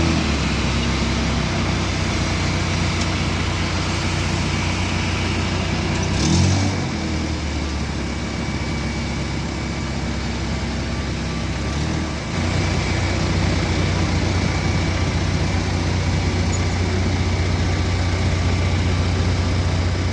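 Steady engine noise with a low hum underneath. A brief louder rush comes about six seconds in, and the hum fades after it and comes back stronger at about twelve seconds.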